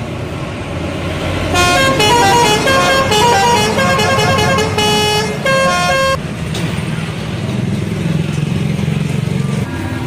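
Indonesian bus telolet horn playing a quick multi-note melody for about four and a half seconds, starting about one and a half seconds in, over the steady low rumble of engines and traffic.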